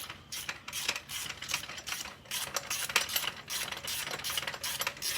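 Hand ratchet wrench clicking in a run of quick, uneven strokes while a bolt on a supercharger mounting bracket is turned.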